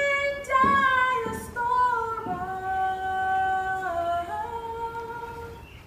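A woman singing softly, holding long notes that slide from one pitch to the next.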